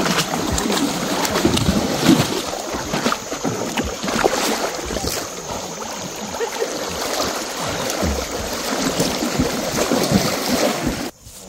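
Continuous splashing and churning of water as a herd of cattle wades through flooded pasture, with many short splashes over a steady wash; it cuts off abruptly just before the end.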